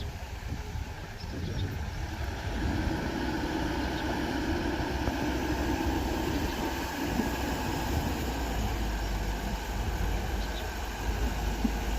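Mitsubishi BD2G bulldozer's diesel engine running steadily, growing louder about two and a half seconds in.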